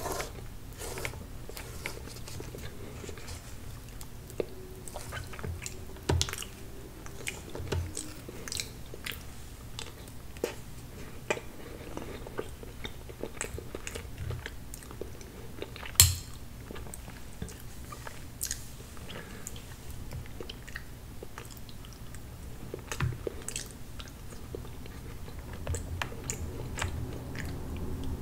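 Close-miked ASMR eating sounds of chocolate tiramisu cake: chewing and scattered mouth clicks, with one sharp click about sixteen seconds in and fingers being licked near the end.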